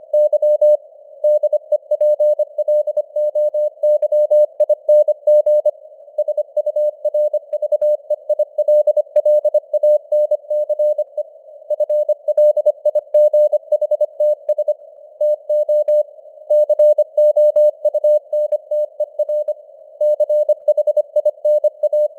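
Morse code sent at 25 words per minute as a rapidly keyed mid-pitched tone over a narrow band of simulated radio hiss. The signal strength rises and falls, as in fading (QSB) on a CW receiver.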